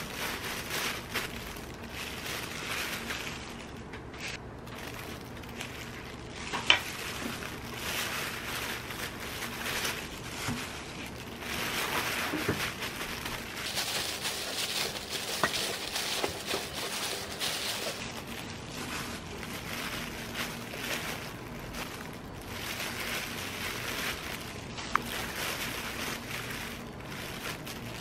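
Disposable plastic gloves rustling and crinkling as hands spread shredded carrot over rice and seaweed and roll up gimbap, with a few sharp light taps.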